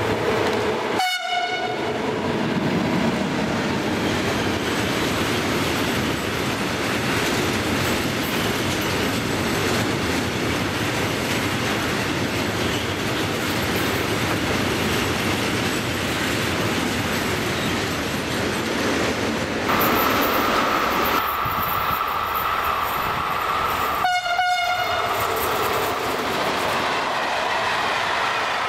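Long freight train of tank and container wagons passing close, with a steady loud rumble and clatter of wheels on the rails. A steady high whine joins about twenty seconds in and lasts a few seconds.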